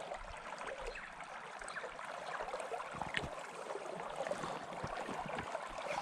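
Shallow river running over a gravel bed: a steady babble of water.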